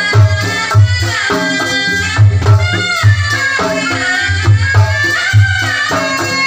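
Sundanese kendang pencak music for pencak silat: a tarompet (shawm) plays a sliding, ornamented melody over kendang drum strokes with deep bass beats several times a second.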